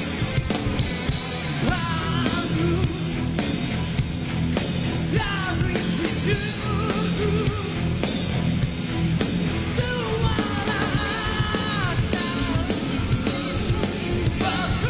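Live rock band playing at full volume, with drums, electric guitars and a male lead singer belting out long sung lines.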